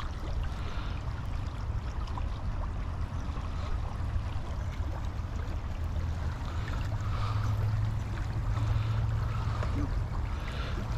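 Canoe moving on a river current: water gurgling and rippling around the hull, over a steady low rumble.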